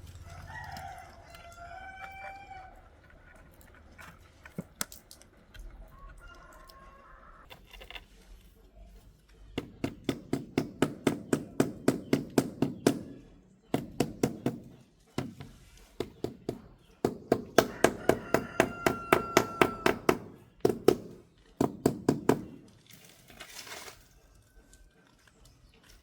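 A rooster crows briefly at the start. Then come three long runs of rapid, even tapping, about seven sharp taps a second, which are the loudest sound.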